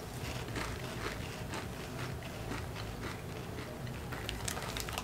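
Crunchy fried snack chips (De Todito mix) being chewed with closed mouths, a steady run of small, irregular crunches.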